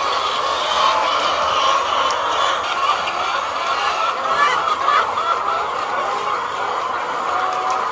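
A large flock of layer hens clucking together in a steady, dense din of many overlapping calls.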